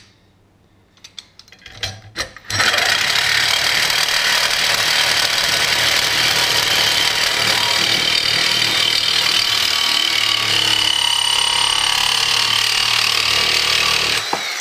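Reciprocating saw with a carbide-tipped blade cutting through hardened leaf spring steel lubricated with cutting paste. A few clicks come as the blade is set against the steel. The saw starts about two and a half seconds in and cuts steadily and loudly until it stops just before the end.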